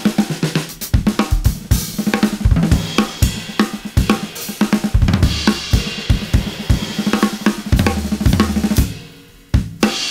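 Acoustic drum kit played with sticks: a busy groove and fills across snare, toms and bass drum with hi-hat and cymbal crashes. The playing drops out briefly near the end, then two more hits.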